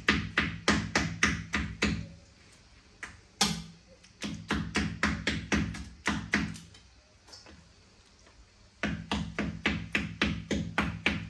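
Kitchen knife striking a cutting board through raw chicken in quick runs of sharp knocks, about four a second. There are pauses between the runs, and one harder single knock a little after three seconds in.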